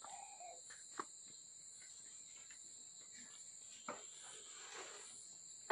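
Steady high-pitched insect chorus from the surrounding forest, with a couple of faint knocks about a second in and near four seconds.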